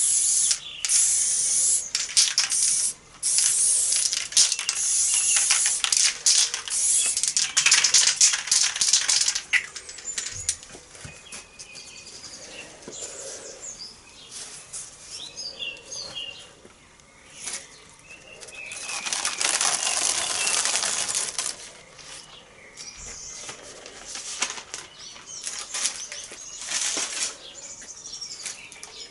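Aerosol spray-paint can hissing in many short bursts as black paint goes onto a stencil, each burst cut off when the nozzle is released. This is followed by quieter rustling and flapping of paper stencil layers being handled and lifted off the board.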